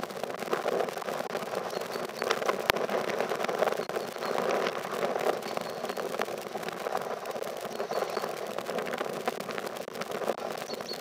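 Steam locomotive 46233 Duchess of Sutherland, an LMS Princess Coronation Pacific, approaching slowly with its train over pointwork: a steady rushing noise scattered with clicks and knocks, one sharp click about two and a half seconds in.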